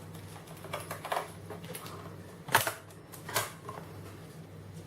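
Plastic clicks and knocks from a laptop being taken apart by hand. There are a few light clicks about a second in, then two sharper snaps in the middle, over a steady low hum.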